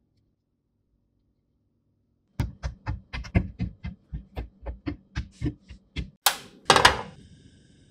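Silence for about two and a half seconds, then a quick run of light knocks and taps, about four a second, as toothpick-skewered potato pieces are set down on a plate. It ends with two louder, harsher clatters.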